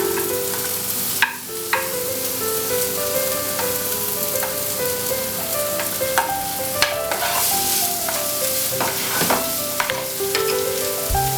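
Garlic and onion sizzling in hot oil in a frying pan, a steady hiss with occasional sharp clicks as it is stirred. Quiet background music plays underneath.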